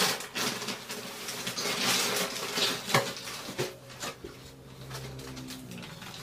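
Plastic wrapping of a rolled, vacuum-packed mattress crinkling and rustling as it is handled and turned, with a few sharp clicks.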